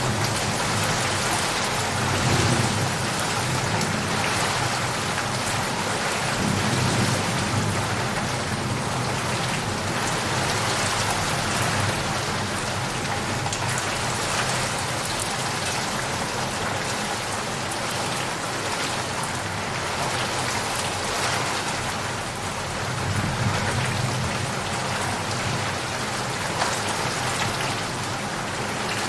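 Steady heavy rain pattering on surfaces, with low rumbles of distant thunder swelling up a few times underneath.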